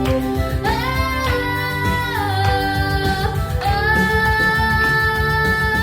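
Song with young voices singing long held notes, starting about a second in, over a guitar-led instrumental backing.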